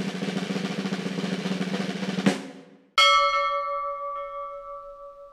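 A snare drum roll of about two and a half seconds, ending in a sharp hit, then about three seconds in a single bell strike that rings on and slowly fades.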